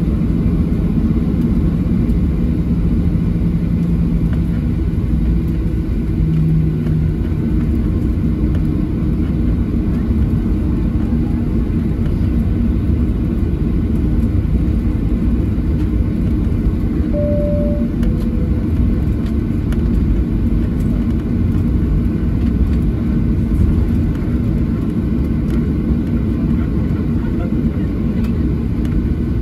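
Cabin noise inside a Boeing 737-800 taxiing: a steady low rumble from its CFM56-7B engines at taxi power and the rolling airframe. A short two-note falling tone sounds about 17 seconds in.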